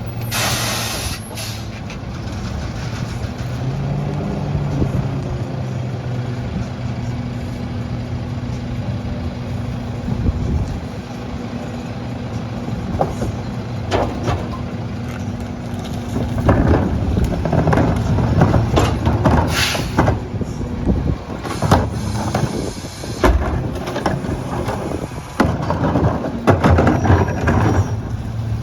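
A CNG Mack LR garbage truck with a McNeilus rear-loader body, its engine running steadily. An air-brake hiss comes at the start, and the engine note rises around four seconds in. From about sixteen seconds on it turns louder and rougher, with clanks and another air hiss.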